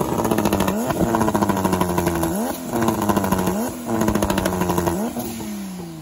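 Turbocharged Toyota 1JZ straight-six in a Toyota Soarer running at raised revs with its anti-lag system on, the exhaust crackling and popping rapidly. The throttle is blipped, with a quick rise in revs about every second and a half, and near the end the revs fall away and it gets quieter.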